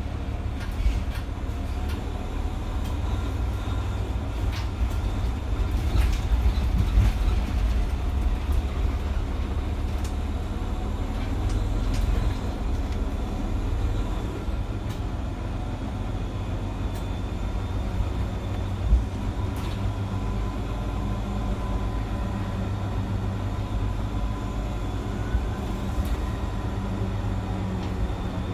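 Mercedes-Benz Citaro C2 city bus heard from inside the passenger cabin while under way: steady engine and road rumble with scattered rattles and knocks. There is one sharper knock about two-thirds of the way through, and a faint high whine in the second half.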